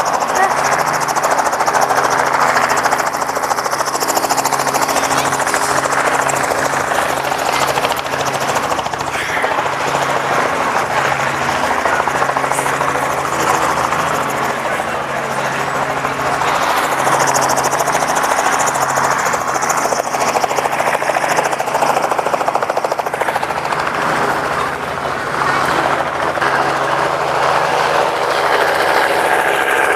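Helicopter engine and rotor running, a loud, steady noise with a constant low hum underneath.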